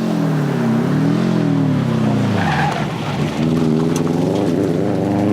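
Subaru WRX STI's turbocharged flat-four engine at racing speed, the revs falling and rising through gear changes. About two seconds in the revs drop low as the car slows for a corner, then climb steadily as it accelerates out.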